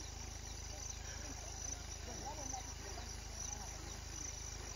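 Crickets chirping in a steady high trill that pulses about twice a second, over a low steady hum.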